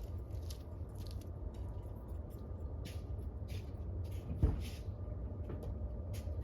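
Light clicks and taps of hand work on a GMC's hood latch and release cable, with one louder knock about four and a half seconds in, over a steady low rumble.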